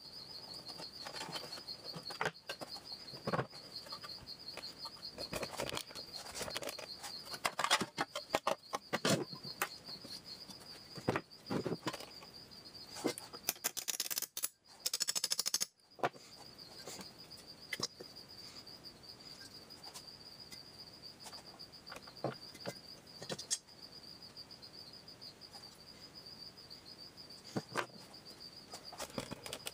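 Irregular metal clicks, taps and clinks of a socket wrench and loosened bolts being worked on a Clinton small engine's shroud and cylinder head, with a steady high-pitched trill underneath throughout. A short burst of hiss comes about halfway through.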